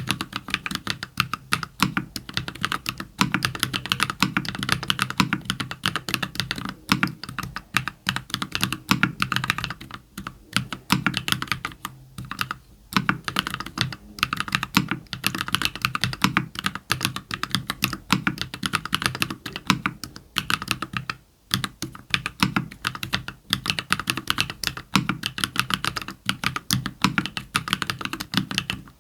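Continuous fast typing on a custom 60% mechanical keyboard with lubed JWK Cola linear switches in an aluminium plate, lubed Owlab v3 stabilisers and semi-transparent keycaps, a dense run of keystroke clacks broken by a few short pauses.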